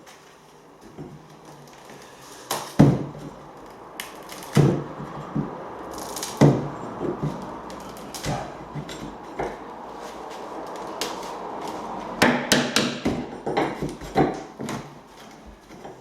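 Irregular knocks and clunks of tools and wood against timber floorboards as the boards are worked on: a few sharp hits spaced a couple of seconds apart, lighter taps in between, and a quicker run of knocks near the end.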